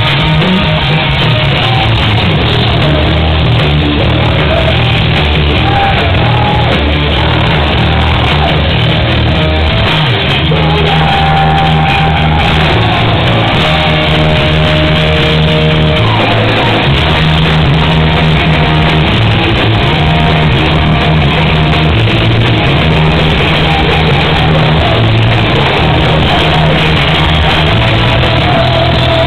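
Live rock band playing loud, with electric guitar, drums and a singer's vocals, heard through the echo of a club hall.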